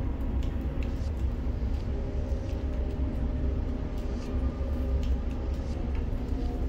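Steady low rumble and hum of a container crane's machinery heard from the operator's cab while it handles a load, with faint whining tones and scattered light clicks.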